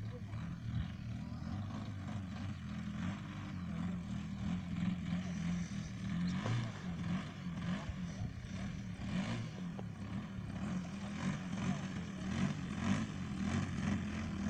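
Engine of a large radio-controlled model aircraft running at low throttle, a steady low drone.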